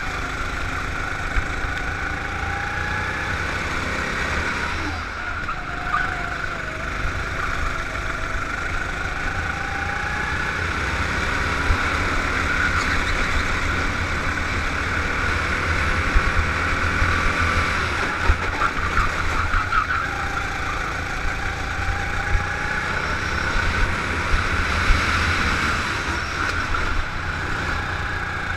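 Go-kart engine running hard at speed on track, its revs rising and falling between the straights and the corners.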